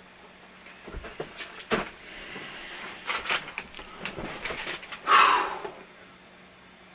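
A person moving about and sitting down in a gaming chair: scattered clicks and knocks, then a brief louder rustling rush about five seconds in as he settles into the seat, over a faint steady hum.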